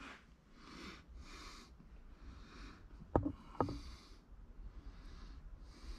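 A person breathing close to the microphone, soft puffs of breath about once a second, with two sharp clicks a little after three seconds in.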